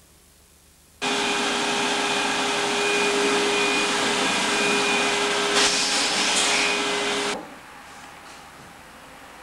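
A loud, steady whirring noise with a constant hum in it, like a motor running, starting suddenly about a second in and cutting off about seven seconds in.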